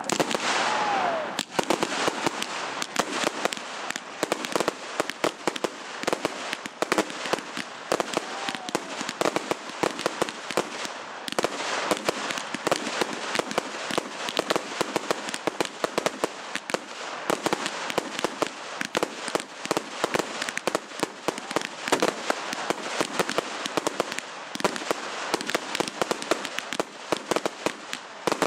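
Fireworks display: a dense, continuous barrage of bangs and crackling, with a short falling whistle about a second in and another around eight seconds in.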